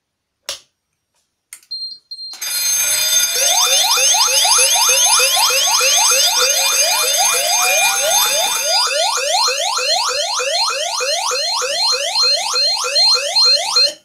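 Fire alarm sounders set off from a manual call point. After a click, a loud electronic siren of rapid rising sweeps, about five a second, starts about two seconds in, with a slower rising whoop laid over it until about halfway. A high, evenly pulsing beep then joins the sweeps until the whole alarm cuts off at the end.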